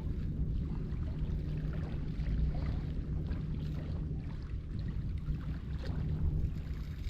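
Wind rumbling on the microphone, with a faint steady low hum underneath and a few light ticks.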